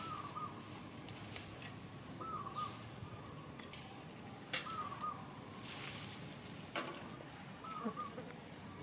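A short, high rise-and-fall animal call, repeated four times about every two to three seconds, over steady outdoor hiss, with a couple of sharp clicks in the second half.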